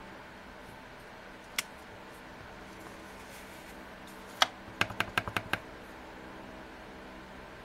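Clear acrylic stamping block tapping on a hard surface during rubber stamping: a single light click about a second and a half in, a sharper knock a little past the middle, then about six quick taps in under a second, over a faint steady room hum.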